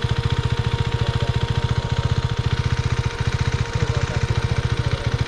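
Motorcycle engine idling with a steady, even pulse, and a thin steady whine above it.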